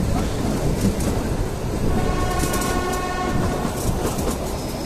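Kalka–Shimla narrow-gauge toy train running, with a steady rumble of wheels and carriages, and its horn sounding once for about a second and a half from about two seconds in.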